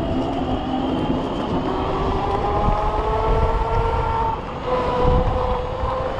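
Electric scooter hub motor whining, rising steadily in pitch as the scooter speeds up; about four seconds in it dips briefly, then holds at a steady pitch. Wind rumbles on the microphone underneath.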